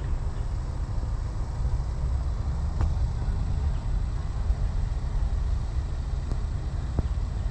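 A steady low outdoor rumble that flutters in level, with a couple of faint clicks.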